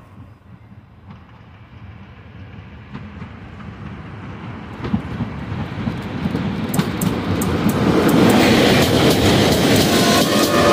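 EP05 electric locomotive and its passenger coaches approaching and passing close by: a rumble that grows steadily louder, then a loud rush with wheels clattering over the rail joints as the coaches go by, from about eight seconds in.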